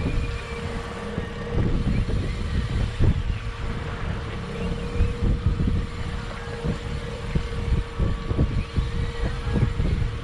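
A boat's outboard motor running at a steady speed, a constant hum, with wind gusting on the microphone in irregular low rumbles.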